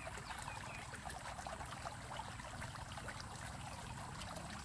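Faint, steady trickling and babbling of water, full of tiny close-spaced ticks.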